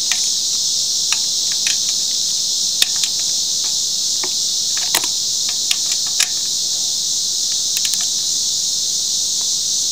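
A steady, high-pitched insect chorus, with a dozen or so scattered metallic clicks from a torque wrench and socket tightening cylinder head bolts.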